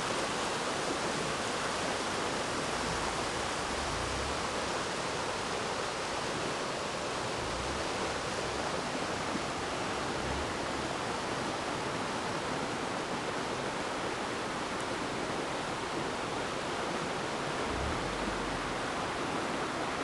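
A shallow river rushing over boulders and small rapids: a steady, unbroken wash of running water.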